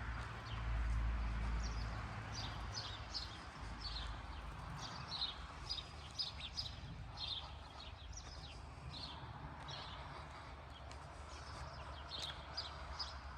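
Small birds chirping, short high calls repeated a few times a second, over a low rumble that is loudest in the first couple of seconds.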